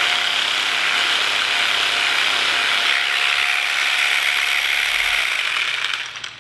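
Jigsaw (Vybe) percussion massage gun running, a steady rapid mechanical rattle from its motor and piston, fading out near the end as it is switched off.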